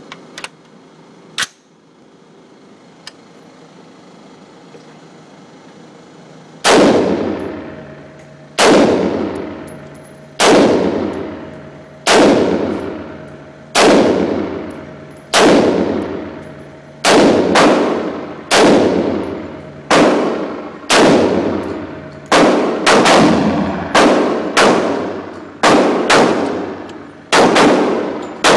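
AR-15 rifle in .223/5.56 firing semi-automatic shots, each a sharp crack with a long ringing echo tail. A few small clicks come first. The shots start about a quarter of the way in, evenly spaced at first, then come faster, some in quick pairs, about twenty in all.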